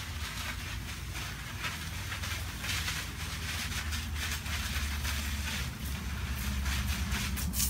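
Garden hose spraying a stream of water, a hissing, splattering noise that swells and fades as the spray moves, over a low steady rumble of wind on the microphone.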